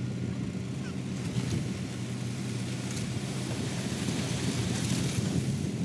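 Diesel engines of a John Deere 5310 tractor dozer and a tipper truck running steadily while the truck's raised body tips out dirt. A brief hiss rises twice over the engine sound, about a second and a half in and near the end.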